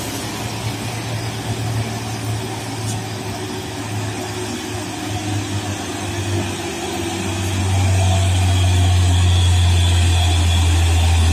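Hino 500 truck's diesel engine running as the truck drives past, a steady low drone that gets clearly louder about two-thirds of the way in as it comes alongside.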